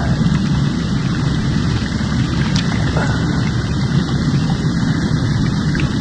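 Jacuzzi tub with its jets running, churning the water steadily and strongly.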